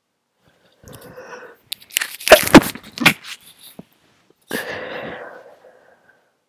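A person with a head cold stifling sneezes: a breathy wind-up, then a quick cluster of sharp, held-in sneeze bursts about two seconds in, followed by a long breath out.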